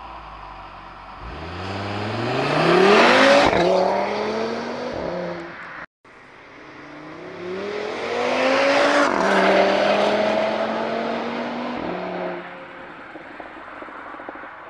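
An Audi RS3 sedan's turbocharged five-cylinder, with its particulate filter and resonator removed, accelerates hard past twice, the two passes split by a cut. Each time the pitch climbs as it gets louder, then drops and fades away.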